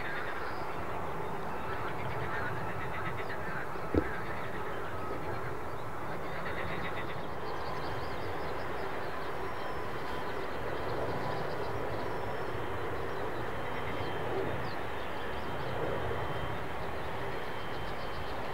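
Steady rumble of distant jet aircraft at the airport, with short repeated animal calls over it, and one sharp click about four seconds in.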